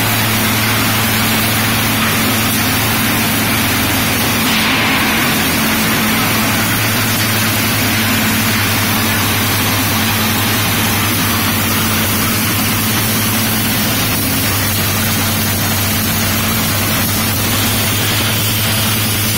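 Supari (areca nut) cutting machine running steadily: a constant low motor hum under a loud, even noise of the cutting mechanism at work.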